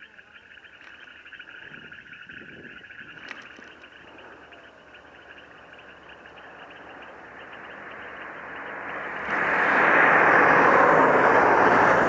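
Chorus of frogs croaking in a dense, steady trill, which stops about three seconds in. From about eight seconds a loud rushing noise builds up and takes over near the end.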